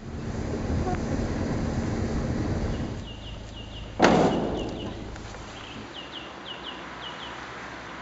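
A low rumbling noise for about three seconds, then a single sudden loud knock about four seconds in, while a small bird chirps repeatedly in short paired notes.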